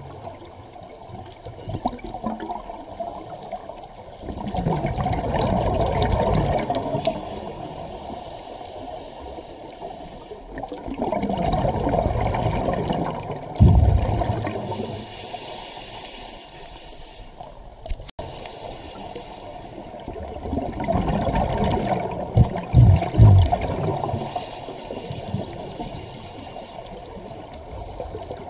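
Scuba diver's exhaled breath bubbling out of a regulator underwater: three bubbling surges, each two to three seconds long and several seconds apart, with a fainter hiss between them.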